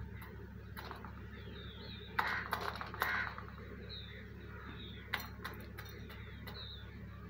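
A peacock's beak tapping and clinking against a steel bowl as it drinks and pecks: a scatter of short metallic clicks, louder around two and three seconds in, with another quick run of taps near the end.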